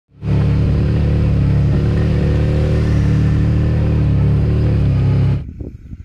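Motorcycle engine running at a steady cruising speed, heard onboard as a loud, even low drone that cuts off abruptly about five seconds in.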